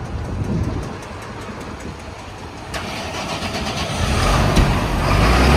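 Diesel tractor engines running; about three seconds in one starts up, and its deep rumble grows louder toward the end.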